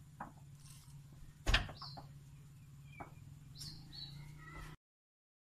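Birds chirping, a short high two-note call three times, over a low steady hum, with a loud thud about a second and a half in and a few lighter knocks. The sound cuts off just before the end.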